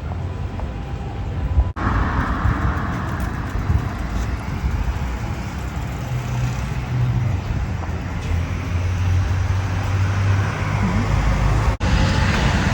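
Street traffic noise: road vehicles running and passing with a steady low rumble. The sound drops out for an instant twice.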